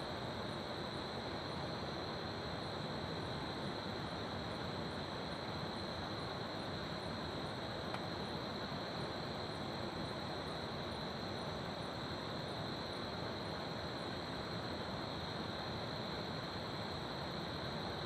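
Crickets trilling steadily, with a fainter, higher chirp repeating about every two-thirds of a second, over the steady rush of a river.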